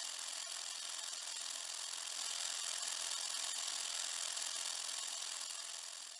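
A steady high hiss with no pitch or rhythm, left after the music's bass cuts out; it swells slightly, then fades out near the end.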